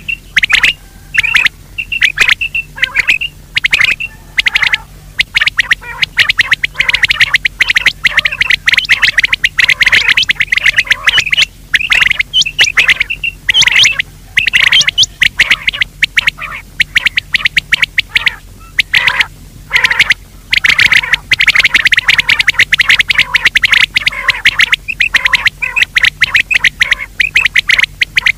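Recorded game-bird calls played as a hunting lure: loud, harsh calls repeated rapidly and overlapping, with only brief gaps.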